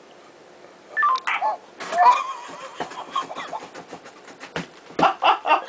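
A man laughing in short bursts after about a second of quiet, with quieter breathy clicks between the bursts.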